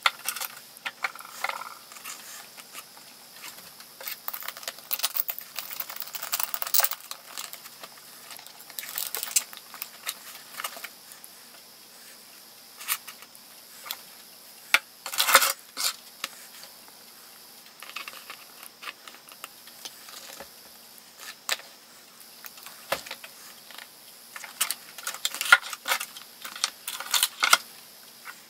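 Small hand tools and parts being handled and set down on a wooden workbench: irregular clicks, taps and light rattles of metal and plastic, with a few sharper knocks, the loudest about halfway through.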